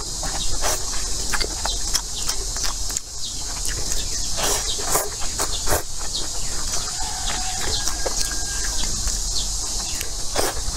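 Close-up slurping and chewing of noodles: repeated wet mouth clicks and sucking sounds. A steady high hiss runs underneath.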